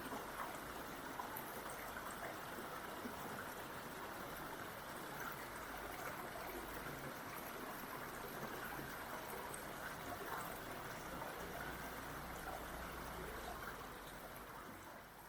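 Waterfall stream water flowing and trickling over rock in a steady rush, fading out near the end.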